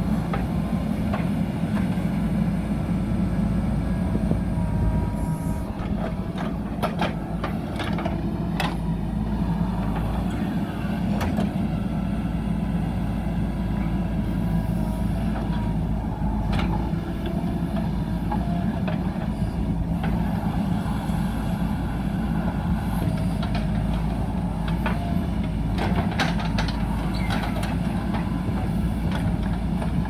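JCB backhoe loader's diesel engine running steadily under load as the backhoe arm digs and drags loose soil, with scattered clanks and knocks from the bucket and boom.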